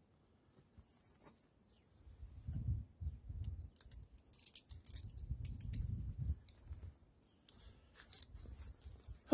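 Handling of a metal cup and cooker-stand set: light clicks and scrapes from the parts being fitted together, with dull rubbing underneath from about two seconds in.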